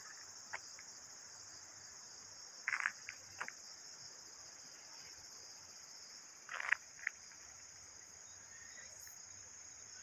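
A steady, high-pitched chorus of insects trilling in the woodland. A few short scuffs come about three seconds in and again near seven seconds.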